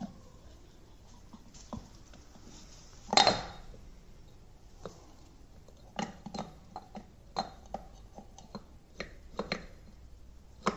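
Metal parts of a scroll compressor knocking and clinking as they are fitted together by hand: one heavier knock about three seconds in, then a string of sharp light clinks with a short metallic ring.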